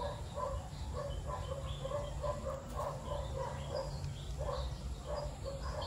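Repeated short animal calls, about two or three a second, over a low steady background rumble.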